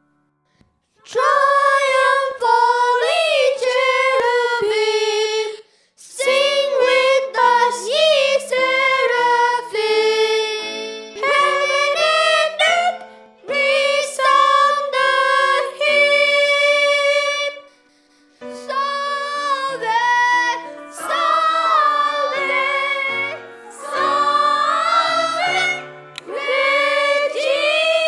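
A woman and boys singing a Marian hymn together in several voices, in phrases of a few seconds each with short pauses between them.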